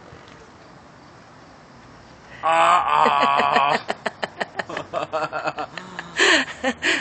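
A man laughing: a high-pitched squeal of laughter starting about two and a half seconds in, then a run of quick short laugh pulses, with two louder bursts near the end.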